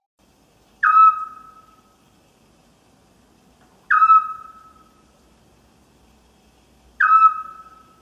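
An owl calling: three whistled notes about three seconds apart. Each slides down briefly at the start, then holds a steady pitch and fades.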